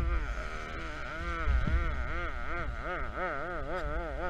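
A man's voice warbling a wordless, wavering note with heavy vibrato, the pitch swinging up and down two or three times a second, over a low wind rumble on the microphone.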